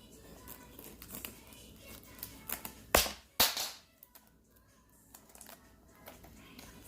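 Handling of a perfume gift box and its packaging: scattered small clicks and rustles, then two loud knocks about half a second apart around three seconds in.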